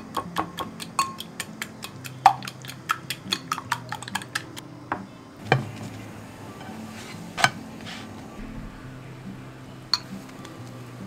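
Metal spoon clinking against a glass bowl while beating eggs, a rapid run of light clicks about four to five a second that stops after about four and a half seconds, followed by a few single louder knocks. Soft background music underneath.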